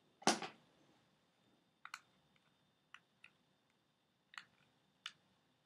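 Scattered plastic clicks and taps from fingers prying at batteries that sit flush in a 1996 Yak Bak voice-recorder toy's battery compartment, with one louder knock just after the start.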